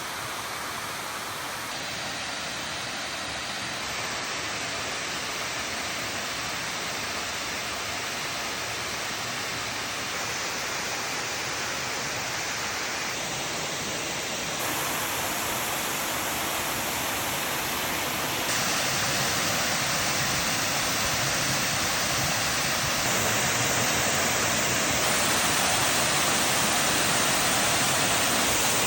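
Waterfall: a steady rush of falling water that jumps up in level a few times and is loudest near the end.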